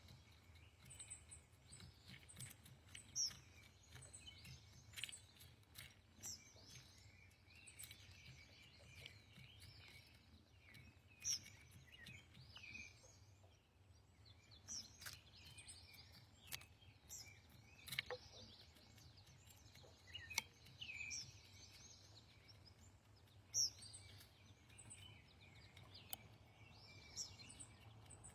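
Faint songbird chirps and short song phrases from several birds, scattered irregularly throughout, over a low steady hum.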